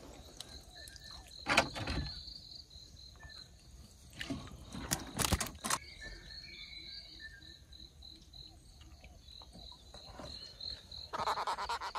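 An insect chirping, a high note repeated evenly about four or five times a second, pausing for a few seconds in the middle. A few sharp knocks break in, the loudest about five seconds in.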